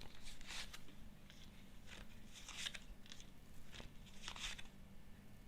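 Faint, scattered rustles and swishes of fortune-telling cards being handled and laid out, over a low steady hum.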